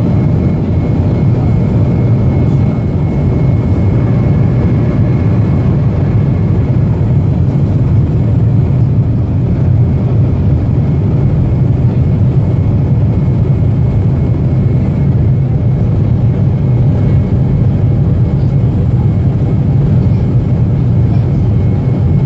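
Steady cabin drone of a Boeing 737-400 airliner in flight, its engines and airflow making a low, even rumble with a faint steady whine above it.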